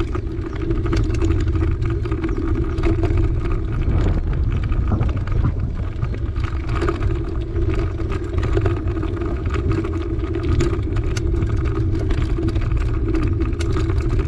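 Bicycle ridden over a bumpy dirt track, heard through a handlebar-mounted camera: a steady heavy rumble of wind and vibration on the microphone, tyre noise, and frequent small knocks and rattles from the bumps.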